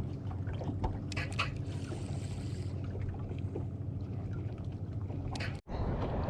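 Boat motor humming steadily under small knocks and splashes. After a sudden cut near the end, louder wind and water rushing take over.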